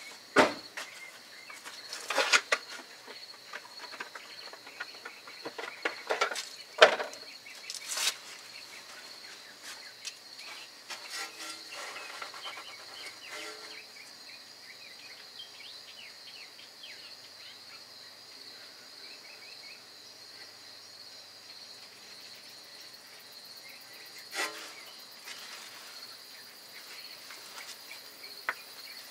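Insects chirping in a steady, high, pulsing chorus, broken by a few sharp knocks and clanks: a cluster in the first eight seconds, the loudest about seven seconds in, and one more near the end.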